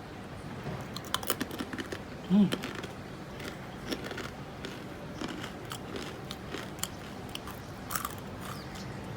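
Crispy fried pasta snack being bitten and chewed, with irregular sharp crunches throughout. A short low hum about two and a half seconds in is the loudest sound.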